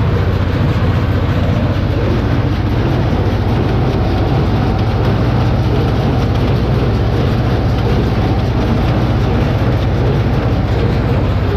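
Tractor engine working under load and a Sipma Z224 small square baler running off its PTO shaft, picking up and pressing hay, heard from inside the tractor cab as a steady, loud mechanical din.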